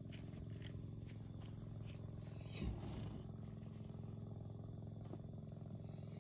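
A steady low hum runs throughout, with one short, louder low grunt about two and a half seconds in from the foaling mare as she strains to deliver the foal.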